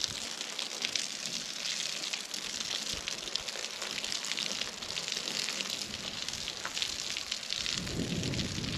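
Steady hiss of borehole water spraying from a hose onto the soil of a foundation pit, soaking the ground before concrete is poured.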